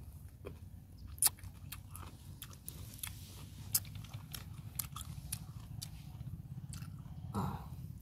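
Someone biting and chewing crunchy raw green mango close by: irregular sharp crunches and wet chewing clicks, over a low steady rumble.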